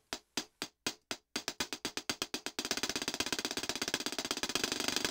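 Groei software drum machine repeating a single short percussive hit, the rate stepping up as the sequence subdivision is raised. It plays about four hits a second, doubles to about eight a second after a second or so, and past the halfway point becomes a fast continuous roll.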